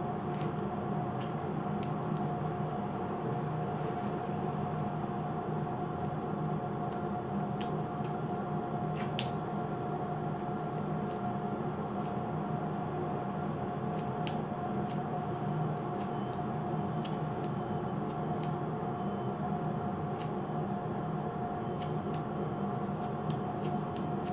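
Steady machine hum with one constant mid-pitched tone, unchanging throughout, with scattered faint clicks.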